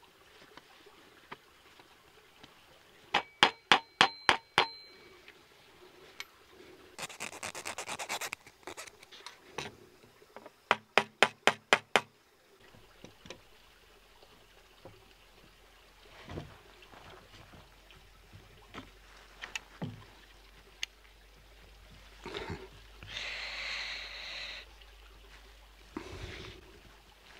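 Hand work fitting a flintlock rifle's barrel and stock: two quick runs of light taps, the first ringing like metal and the second duller, with stretches of metal scraping and rubbing against wood between them.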